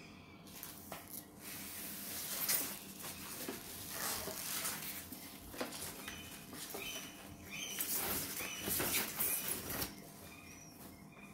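Plastic and paper packaging crinkling and rustling as it is handled and pulled off a coffee machine, in irregular stretches, loudest about two and a half seconds in and again between about eight and ten seconds in.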